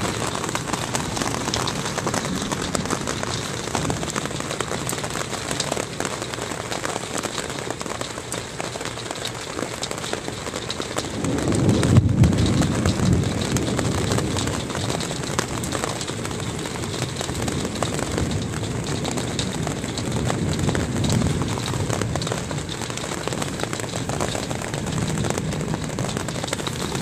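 Hail and rain hitting the roof of a camper in a dense, steady patter of small impacts. About eleven seconds in, a low rumble swells for a few seconds and then fades.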